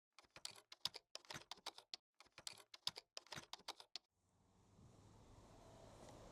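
A rapid, irregular run of sharp clicks for about four seconds, then a faint steady hiss of background noise fading in.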